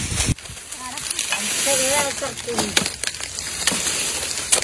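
Dry sugarcane leaves and stalks being handled and scraped with a blade: a steady hissing rustle with a few sharp knocks.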